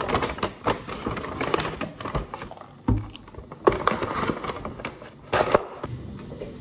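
Paper takeaway bag rustling and crinkling as it is unpacked, with a few sharp knocks as a boxed donut and a plastic drink cup are set down on a glass tabletop.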